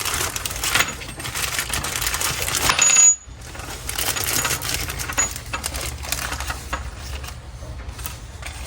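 A string of light metallic clicks and clinks as the small metal parts of a diesel air heater are handled while its gasket is fitted.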